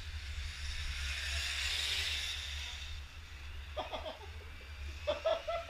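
A radio-controlled car running on the track, its whir swelling over about two seconds and then fading, over a steady low rumble. Brief voices come in near the end.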